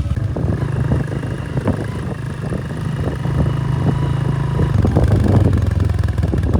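Vehicle engine running steadily with a low drone while driving, with frequent short knocks and rattles over it.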